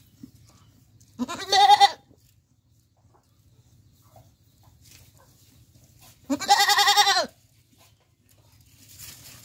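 Goat bleating twice, each bleat about a second long with a wavering, quavering pitch.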